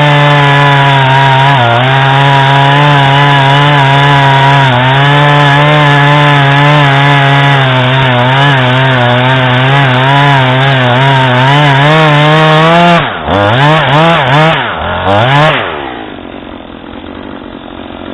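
Husqvarna 440 X-Torq 40.9 cc two-stroke chainsaw running at high revs through wood, its pitch wavering slightly under load. About thirteen seconds in the throttle comes off: the engine drops, revs up and down a few times, then settles to a much quieter idle.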